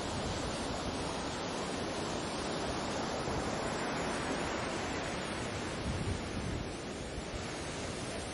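Sea surf washing onto the shore in a steady rush that swells gently and eases off, with some wind buffeting the microphone.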